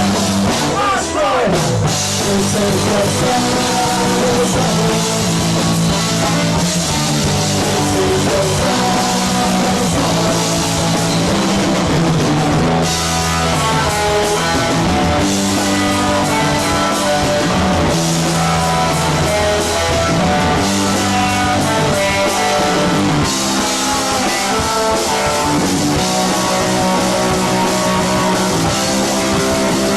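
Punk rock band playing live: two electric guitars, bass guitar and drum kit, with some singing. A falling pitch slide comes about a second in.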